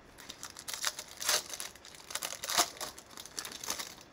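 Wrapper of a 2020 Bowman baseball card pack being torn open and crinkled: a run of irregular rustling crackles, loudest about two and a half seconds in.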